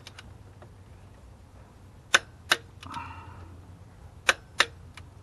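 Click-type torque wrench clicking off twice on an intake manifold bolt, each time a sharp double snap: the bolt has reached the wrench's set torque of 89 inch-pounds, and it is checked a second time.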